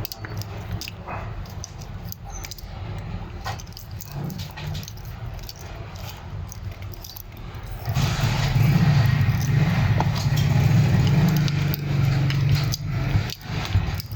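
Metal clinking, rattling and scraping as an old electric motor's copper winding is cut out of its iron core. From about eight seconds in, a louder steady low hum with rattling joins in for several seconds.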